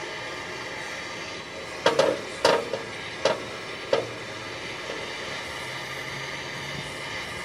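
Handheld propane torch hissing steadily as its flame heats a rusted exhaust flange bolt. Four or five sharp pops or knocks come between about two and four seconds in.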